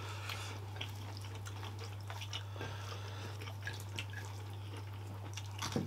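Quiet eating sounds from several people eating with their hands: scattered small wet clicks and smacks of chewing and of fingers and dishes on plates, over a steady low hum.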